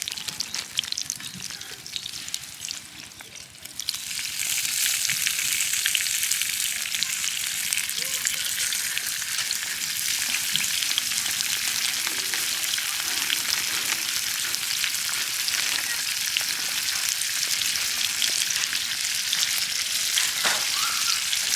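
Food sizzling as it cooks, with fine crackling throughout; the sizzle jumps suddenly louder about four seconds in and then holds steady.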